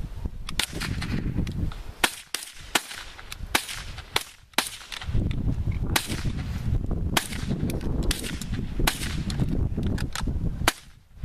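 Irregular rifle fire from several shooters at once, about twenty sharp shots at uneven spacing, some coming in quick pairs. A low rumble runs between the shots.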